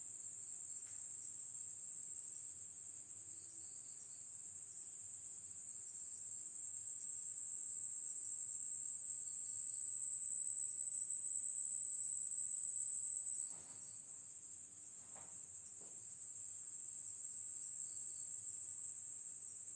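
Crickets trilling in one continuous, high-pitched shrill chorus. It swells louder, drops off suddenly about 13 seconds in, then builds again, with a few faint knocks.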